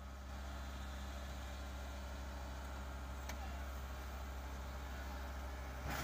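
Kubota combine harvester's diesel engine running steadily, heard as a faint, even low hum.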